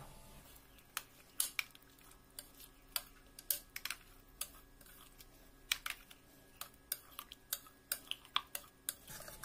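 Metal spoon clicking against a bowl while fruit pieces are stirred into thick custard: light, irregular clicks, a few a second.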